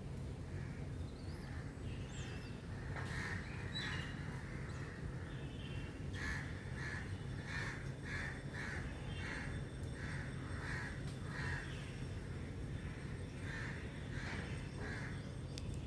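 A bird calling over and over in short harsh calls, a few at first and then a steady run at about two calls a second from about six seconds in, over a low steady hum.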